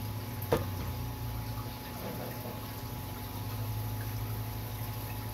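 Aquarium filtration running: a steady low pump hum under the sound of moving, bubbling water, with one sharp click about half a second in.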